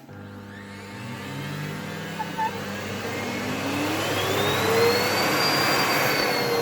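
Samsung Easy 1800 W vacuum cleaner's newly fitted motor switching on and spinning up, its whine climbing steadily in pitch and loudness over several seconds, then levelling off. It runs freely and quietly with strong suction, in place of the old motor whose broken turbine had jammed so that it hummed without turning.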